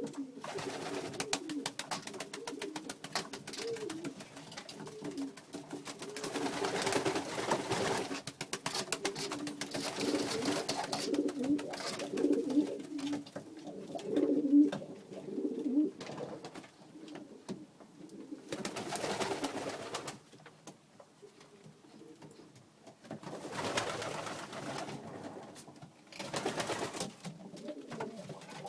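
Domestic pigeons cooing repeatedly, with several short bursts of rustling, scuffling noise among the calls.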